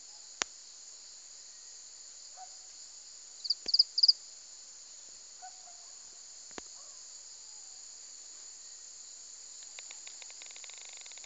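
Steady high-pitched chorus of insects such as crickets, with a quick run of loud, high chirps about three and a half seconds in. A few sharp clicks fall in between, and a fast buzzing trill starts near the end.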